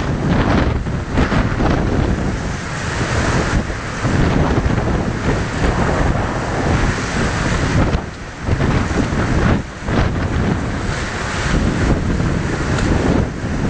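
Gale-force storm wind buffeting the microphone over heavy sea waves surging and breaking against a harbour quay wall. It is a loud, gusty rush with two brief lulls a little past the middle.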